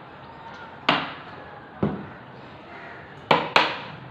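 Hammer blows on wood: four sharp strikes with a short ring after each, the last two in quick succession.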